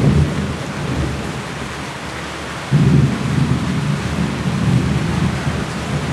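Steady heavy rain with thunder rumbling. A louder roll of thunder starts suddenly about three seconds in and rumbles on.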